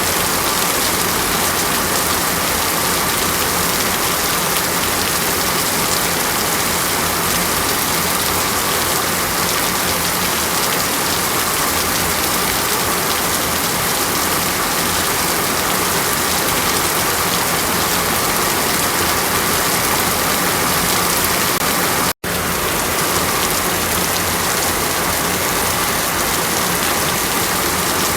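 Steady rain falling, an even dense hiss with no change in strength. About 22 seconds in it cuts out to silence for a split second and resumes.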